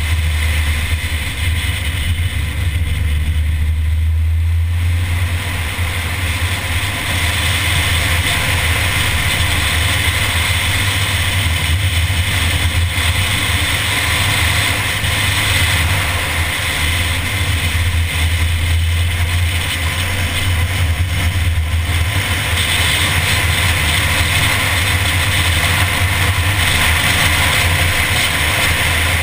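Mini car driving at speed, heard from a bonnet-mounted camera: a steady low engine-and-road drone under a rushing noise, easing off briefly twice.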